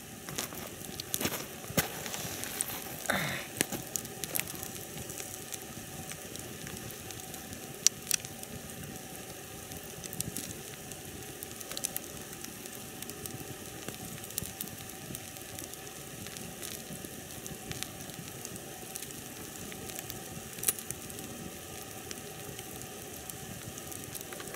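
Wood campfire burning: a steady hiss of flames with scattered sharp crackles and pops from the logs, a few of them louder.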